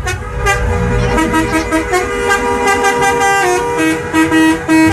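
Bus "telolet" musical horn playing a tune: one note is held steadily throughout while shorter notes step up and down in pitch over it, with runs of quick repeated toots.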